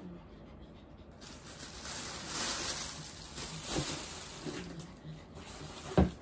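Plastic bag rustling and crinkling as it is handled, then a single sharp thump near the end.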